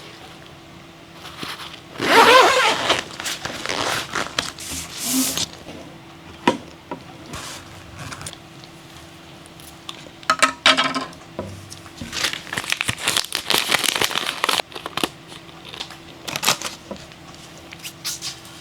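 Packaging being handled while unwrapping a fishing rod: irregular bursts of crinkling and tearing, with clicks and scrapes between them.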